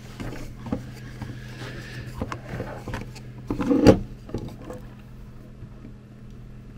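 Clicks and knocks of hands working a compressor's plastic handle housing with side cutters, cutting into the old power cable; the loudest is a clunk about four seconds in.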